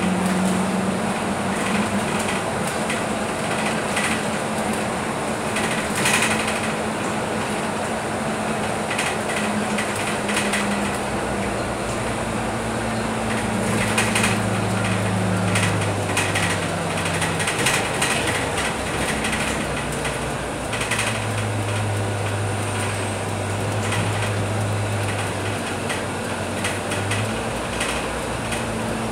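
Scania K310UB city bus heard from inside the cabin while driving: its rear-mounted diesel engine and driveline drone steadily under road and tyre noise, with scattered rattles from the body and fittings. The engine drone steps down to a lower pitch about a third of the way in.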